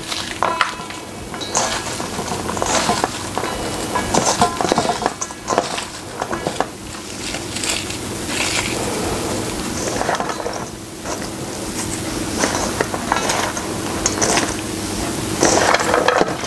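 Hands separating thinly sliced onions into rings in a stainless steel mixing bowl: irregular rustling of the onion slices and light clinks against the metal bowl.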